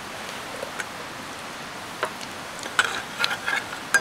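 Whole spices sizzling in hot mustard oil in a steel pan on a camping stove. From about halfway through, a few sharp ticks come as a metal spatula stirs against the pan.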